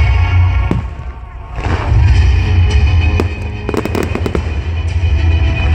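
Fireworks bursting over music, with a quick run of sharp crackling pops about four seconds in.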